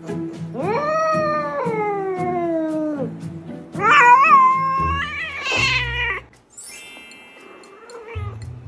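A female domestic cat in heat yowling in two long drawn-out calls. The first rises and then falls in pitch, and the second is louder and wavering. It is her mating call, not a cry of pain, made while pressure is held near the base of her tail.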